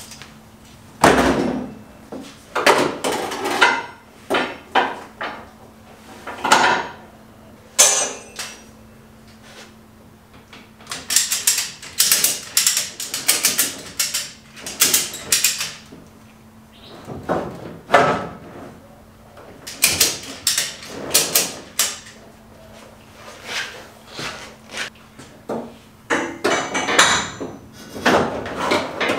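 Irregular clanks, knocks and rattles as ratchet straps are handled and hooked around steel roll-cage tubing inside a pickup cab, some coming in quick runs of clicks. A faint steady hum sits underneath until near the end.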